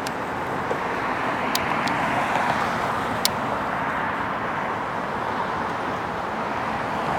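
Road traffic passing with a steady rushing hiss that swells and fades gently, and a couple of sharp clicks.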